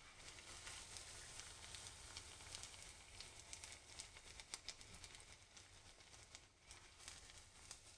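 Faint sizzling and crackling of hot oil as potato-dough nuggets deep-fry in a pan, a dense run of small pops that thins a little near the end.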